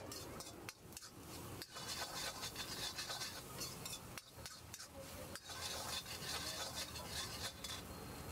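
A steel spatula stirring and scraping bhurji around a black wok, metal rasping against the pan in repeated strokes, with two spells of harder scraping, one around two to four seconds in and one from about five and a half to seven and a half seconds.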